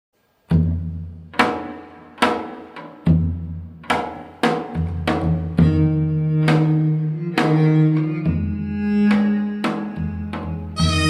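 Korean traditional instrumental music for taepyeongso, piri, dae-ajaeng and janggu: it starts about half a second in with a string of sharp struck notes, each ringing and fading, over low held bass-string tones. Near the end a bright double-reed wind comes in with a held note.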